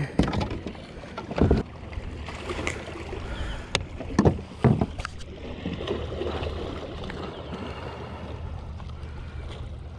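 A few short knocks and bumps against the kayak's plastic hull and gear as a freshly caught largemouth bass is swung aboard on the line and taken in hand, over steady wind rumble on the microphone. The knocks fall in the first half; the second half is mostly the wind.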